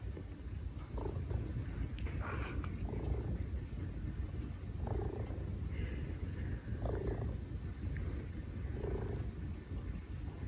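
Maine Coon cat purring, a steady deep rumble that swells louder about every two seconds.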